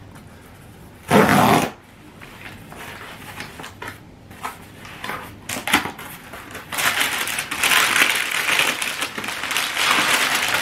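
A cardboard shipping box's tear strip rips open in one short, loud burst about a second in. Scattered scuffs and taps follow as the flaps are opened. From about two-thirds of the way in, brown kraft packing paper crinkles and rustles steadily as hands dig through it.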